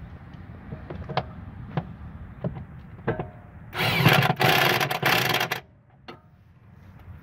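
Corded DeWalt electric impact wrench run in one burst of about two seconds, about halfway through, with a brief break or two, driving a suspension bolt. A few light knocks of the tool and socket come before it.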